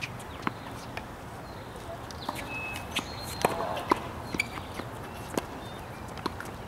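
Outdoor tennis-court ambience with about nine scattered sharp pops of tennis balls bouncing or being struck, unevenly spaced, the loudest two around the middle.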